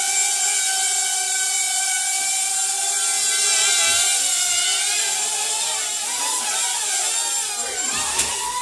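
Small toy quadcopter drone's propellers whining steadily as it hovers. From about halfway through, the pitches of the rotors waver up and down as it manoeuvres.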